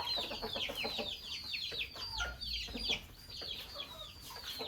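A flock of chickens with chicks, the chicks peeping continuously: many short, high, falling peeps overlapping one another, with a few lower calls among them.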